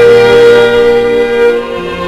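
Instrumental background music with a violin playing long held notes; the notes change near the end.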